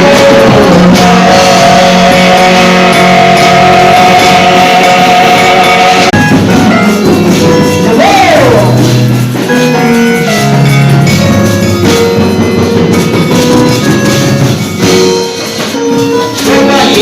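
Loud church band music with drums and tambourine over sustained held notes; a note slides up and back down about eight seconds in.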